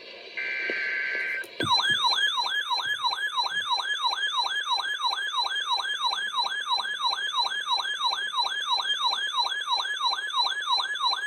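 Emergency Alert System signal off a weather radio feed: a short burst of buzzing SAME header data tones, then from under two seconds in a loud, siren-like electronic alert tone that sweeps down in pitch about three times a second, marking the start of a new warning.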